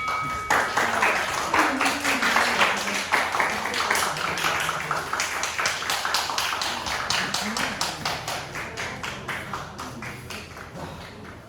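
A small crowd clapping, with a few voices cheering, the claps thinning and fading toward the end.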